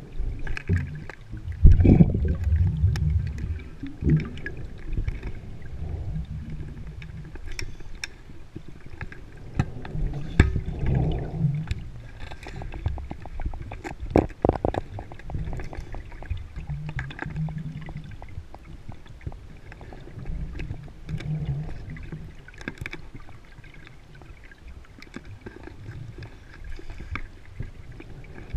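Scuba diver breathing underwater through a regulator: exhaled bubbles rumble out in surges every few seconds, with scattered clicks and knocks between breaths and a quick rattle of ticks midway.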